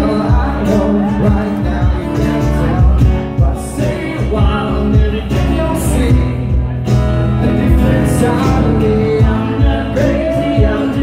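Live acoustic band: a male lead singer over strummed acoustic guitars and percussion, amplified through a PA.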